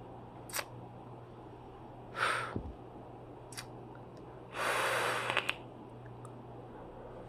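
A person's breathing while vaping: a short sharp breath about two seconds in, and a longer, louder breath lasting most of a second about four and a half seconds in. A few faint clicks fall between and after them.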